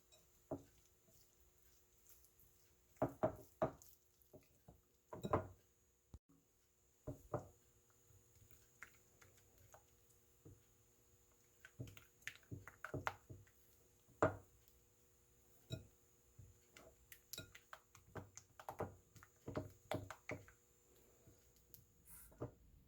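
Irregular light clicks and taps of kitchen utensils against a bowl, some in quick pairs, over a faint steady hum.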